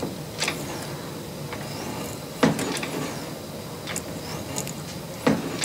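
Metal lathe carriage worked back and forth by hand to slot a keyway with a shaper-style cutter, thunking each time it bottoms out against the carriage stop: two loud thunks about three seconds apart, with lighter clicks of the tool and slide between.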